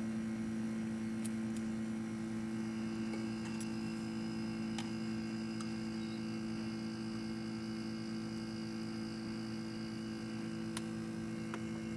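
Mini-split outdoor unit's compressor running with a steady electrical hum after its refrigerant recharge, with a few faint clicks.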